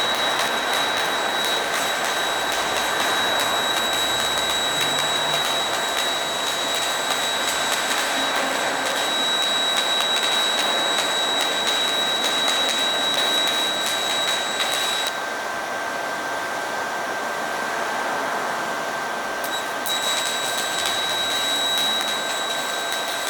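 Stick welding arc from a Pro 200i portable inverter welder burning a 3.2 mm covered electrode: a steady crackling hiss with a thin high whine over it. About 15 seconds in, the upper hiss and the whine drop away for some five seconds, then return.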